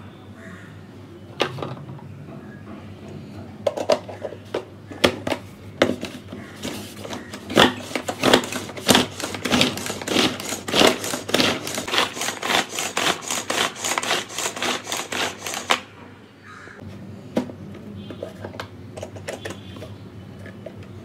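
Pull-cord manual vegetable chopper dicing an onion: a few clicks as the onion goes in and the lid is fitted, then a fast run of repeated cord pulls spinning the blades for about nine seconds, which stops suddenly.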